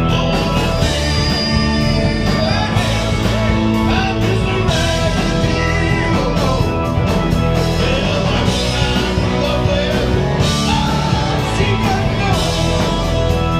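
Rock music: a band playing with a singing voice over a steady drum beat.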